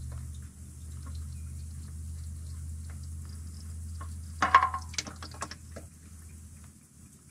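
Engine oil dripping and trickling from a car's oil pan into a plastic drain pan. About four and a half seconds in comes a sharp metallic clink with a short ring, then a few small clicks, as a tool is handled at the pan.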